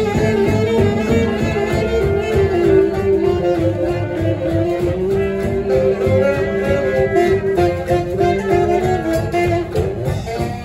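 Live swing jazz band: a tenor saxophone plays a melody of long held notes over archtop guitar rhythm and a steady low beat.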